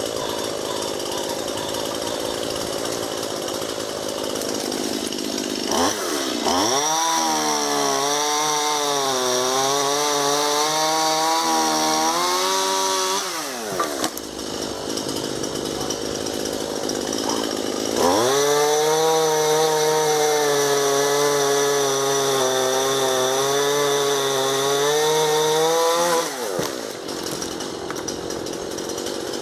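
Two-stroke chainsaw idling, then opened up to full throttle twice for about seven seconds each, dropping back to idle in between. The engine note sags a little under load as it cuts through a fallen ash limb.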